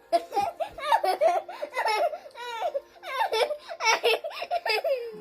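High-pitched laughter in quick repeated bursts, giggling without words.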